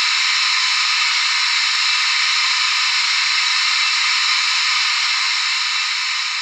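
Steam hiss from the sound decoder of a standing model ÖBB class 52 steam locomotive, played through the model's small speaker: a steady, loud hiss that begins to fade near the end.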